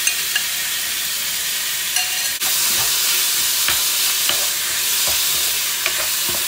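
Marinated stir-fry beef sizzling as it fries in a hot pan, with a few short clicks of a utensil stirring against the pan.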